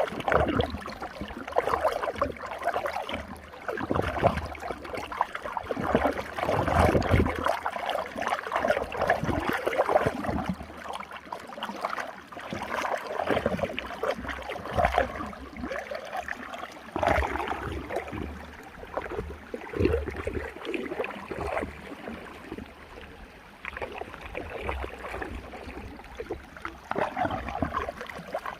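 Running water swirling in a whirlpool, gurgling and splashing continuously, with the loudness surging and easing irregularly.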